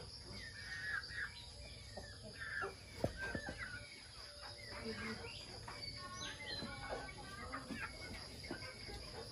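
Birds calling with short, scattered chirps over a steady high-pitched insect hum, with a few faint knocks.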